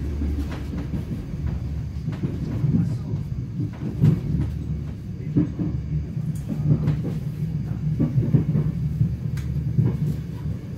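Cabin sound of an ÖBB class 4020 electric multiple unit running along the line: a steady low rumble of the wheels and running gear, with irregular clicks and knocks from the wheels on the track.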